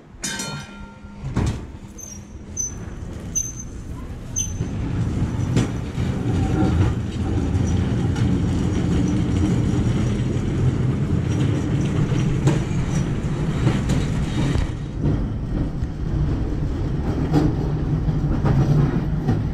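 Open-bench electric streetcar rolling along its track: a low rumble of steel wheels on rail builds from about four seconds in and then runs on steadily.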